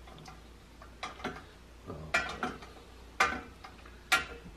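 About six sharp metallic clicks and knocks at uneven spacing, the later ones louder, from hands working the valves and fittings on basement water pipes beside a filter housing.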